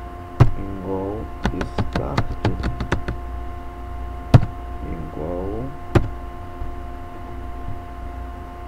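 Computer keyboard typing: a quick run of about ten keystrokes as a word is typed, then a couple of separate, louder key taps.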